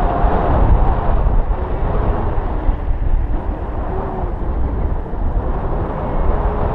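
Wind rushing over the microphone of a paraglider in flight: a steady low rumble of airflow.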